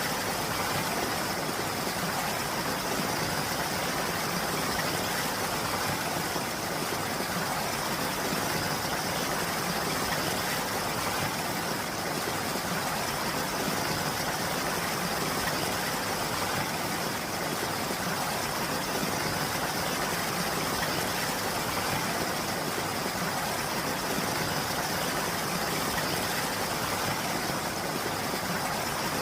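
Steady rain falling, an even, unbroken hiss with no single drops or gaps standing out.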